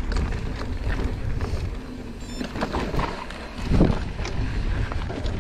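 Mountain bike riding fast over a dirt singletrack: tyre rumble over rocks and roots, the bike rattling and clicking, and wind rushing on the microphone. A louder jolt comes a little under four seconds in.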